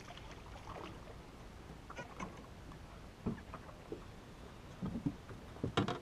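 A fish being landed onto a boat deck: a brief splashy rustle at the start, then a run of short knocks and thuds as the fish is swung aboard and flops on the deck, the loudest thud near the end.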